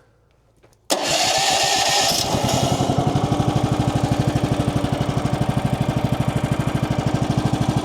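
Kohler engine of a Woodland Mills portable sawmill starting up about a second in and then running steadily with an even firing beat, freshly refuelled and oiled.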